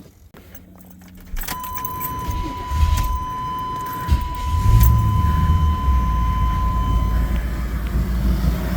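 1987 Chevrolet Suburban started with the key: a steady dashboard warning tone comes on and holds for about six seconds while the engine cranks, catches about four seconds in, and settles into a steady idle.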